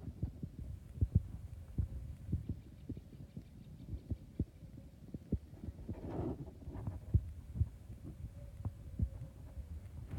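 Irregular low thumps and rumble of buffeting on the microphone, with a faint steady hum; a brief louder rush about six seconds in.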